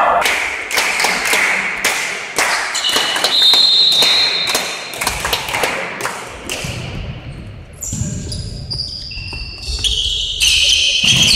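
Sharp echoing knocks of a volleyball being bounced and struck in a large sports hall, several a second at first. Short high squeaks from shoes on the court floor follow near the end.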